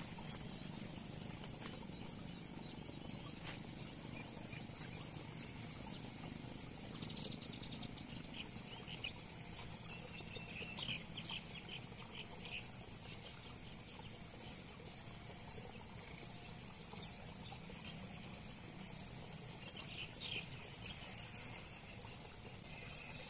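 Steady high-pitched insect buzz with short bird chirps now and then, loudest a few seconds in and again near the end.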